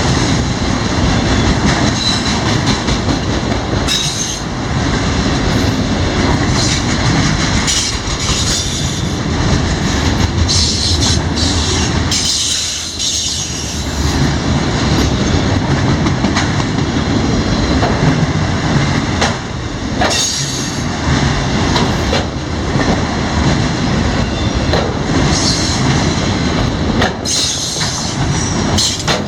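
Freight train cars rolling past at close range: steady wheel rumble with repeated clicks and knocks of wheels over rail joints and occasional high wheel squeal.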